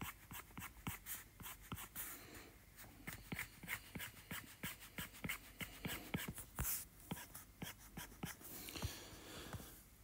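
Apple Pencil's plastic tip tapping and scratching on an iPad Pro's glass screen in quick, short sketching strokes: a fast, uneven run of faint clicks.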